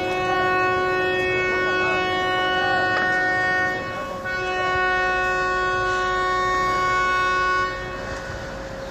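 Several vehicle horns sounding together in long, held blasts. One horn drops out for about half a second about four seconds in, and the sound falls off shortly before the end.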